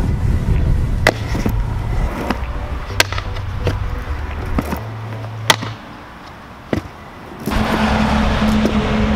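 Stunt scooter riding on concrete and asphalt, over background music with a bass line. Several sharp, irregular clacks from the scooter landing and hitting the ground, and a rough rolling sound of small hard wheels on the asphalt near the end.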